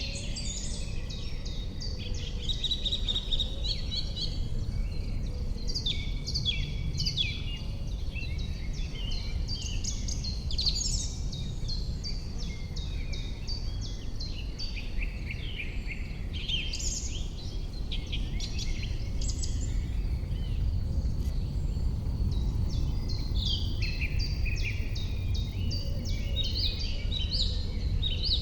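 Several songbirds singing and chirping in a continuous springtime chorus of short repeated notes and trills, over a steady low rumble.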